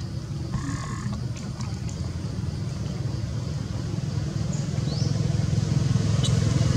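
Low, steady rumble of a motor vehicle engine, growing slowly louder as it approaches. There are two short rising chirps, one near the start and one about five seconds in, and a brief call about half a second in.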